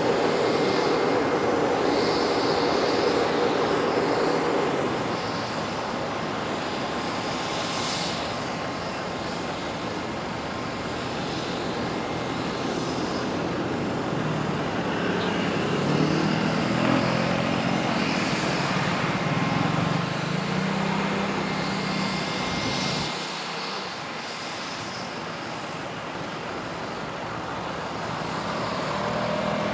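Steady jet aircraft noise, a high whine over a rumbling hum. A lower hum wavers in pitch in the middle, and the low rumble drops away sharply about 23 seconds in.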